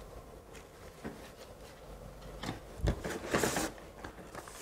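Quiet unboxing sounds: a cloth pouch and a flat white cardboard piece lifted out of a molded pulp tray in a cardboard box. Faint scattered clicks, a soft low thump a little before three seconds in, then a short papery scrape.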